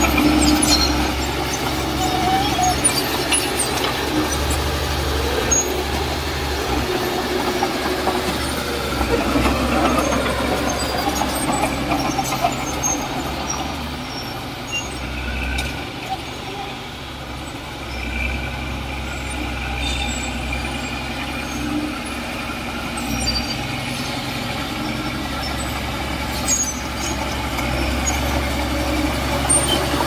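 Heavy diesel construction machinery running steadily, its engine drone somewhat quieter in the middle.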